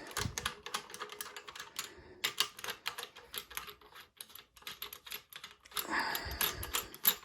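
Hand ratchet clicking in quick runs of light, rapid clicks as a bolt is turned on the engine.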